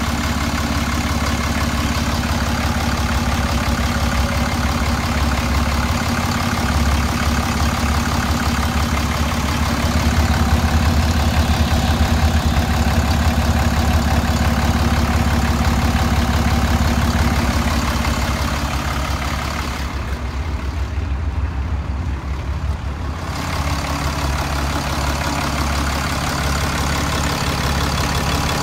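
PACCAR diesel truck engine idling steadily, heard close up in the open engine bay. For a few seconds about two-thirds of the way through, the sound turns duller.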